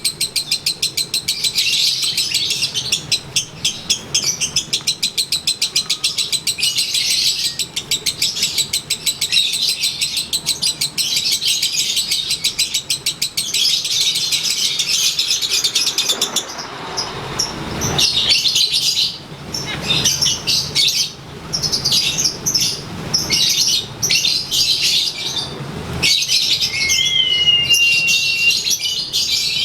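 Lovebird of the 'konslet' type doing its ngekek: a long, very fast, high chattering trill that runs unbroken for about sixteen seconds. After a brief rushing noise it resumes in shorter broken runs. Near the end comes a clear whistled note that rises and then holds.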